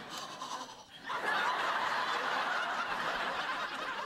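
Studio audience laughing. The laughter dips briefly just before a second in, then swells up again and carries on.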